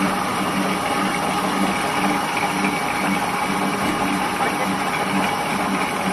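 Double roller extrusion fertilizer granulator running steadily, a constant machine noise with a regular low pulsing, while its compound fertilizer granules pour out of the outlet.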